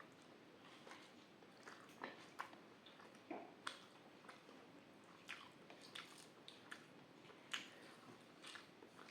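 Close-miked mouth sounds of eating: soft chewing with irregular wet smacks and clicks of the lips and tongue.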